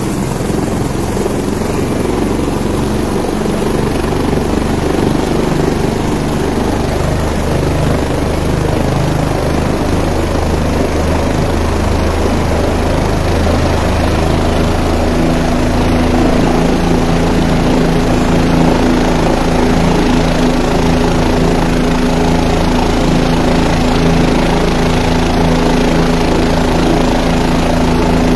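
Light helicopter with a two-blade main rotor running on the ground, its engine and rotor making a loud, steady noise. A higher steady hum joins about halfway through.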